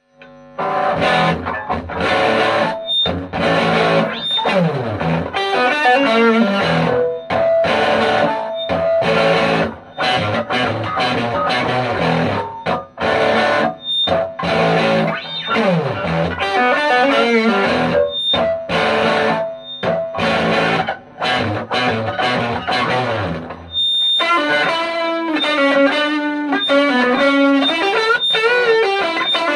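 1991 Fender Custom Shop '52 Telecaster played through a Roland JC-120 amplifier with its built-in distortion turned fully up. Stop-start riffing with slides down the neck gives way, about three-quarters of the way through, to held notes that bend and waver.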